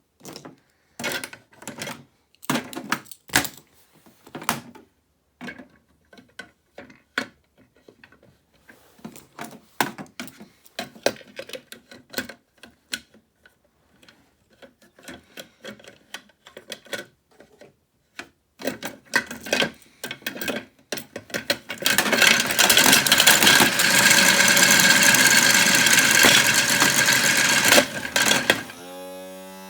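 Small plastic tripods clattering inside a toy washing machine's drum: scattered clicks and knocks at first, then about 22 seconds in a dense, loud rattle for about six seconds. It drops to a quieter hum near the end.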